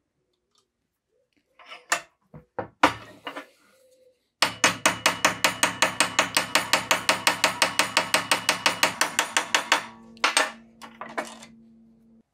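Ball-peen hammer striking the end of a steel rod clamped in a bench vise, peening it over to form a rivet head. A few separate taps come first, then a fast, even run of about six strikes a second for about five seconds. After the run the steel rings on, with a few last taps.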